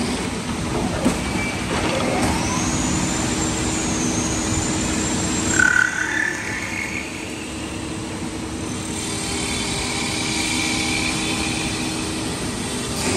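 Automatic four-tool CNC wood lathe running, its spindle turning a wooden blank while the cutters shave it, over a steady machine hum. A high whine rises and dips for a few seconds, and a sharp knock comes about halfway through.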